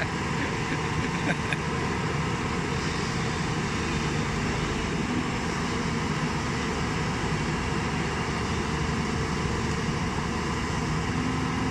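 JCB 205 tracked excavator's diesel engine running steadily.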